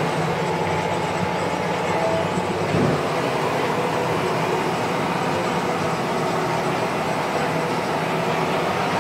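Massey Ferguson 7626 tractor's six-cylinder diesel running steadily under load, heard from inside the cab, as it pulls a Horsch Joker disc harrow through the ground.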